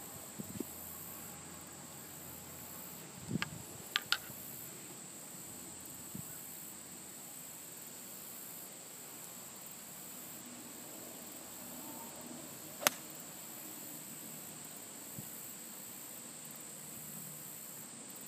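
Golf iron striking a ball: one sharp, loud crack about two-thirds of the way in, with a few lighter clicks a few seconds in, over a steady high-pitched hiss.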